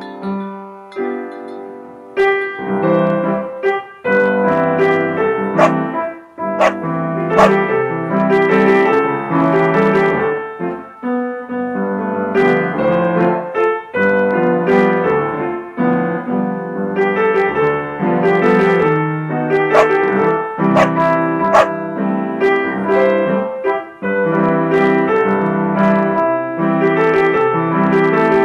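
Piano music: a melody of struck notes over sustained chords.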